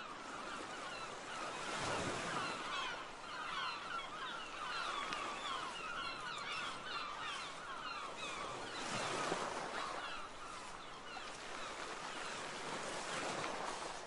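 A flock of birds calling, many short quick calls overlapping into a dense chatter, over the steady wash of waves on the shore, which swells about two seconds in and again around nine seconds.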